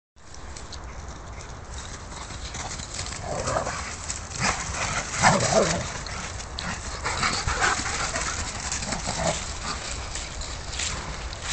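Several dogs play-fighting, giving short bursts of growls and yelps between about three and nine seconds in, loudest around five seconds.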